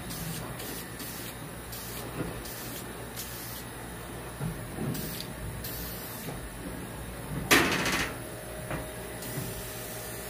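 Aerosol can of vinyl and fabric spray paint hissing in short bursts, roughly one or two a second, with one louder, longer burst about seven and a half seconds in. A steady low hum runs underneath.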